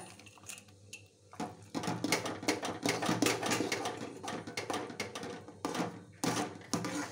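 Spoon scraping and clicking against an aluminium pan while thick rava kesari is stirred fast, starting about a second and a half in as a rapid run of short clicks.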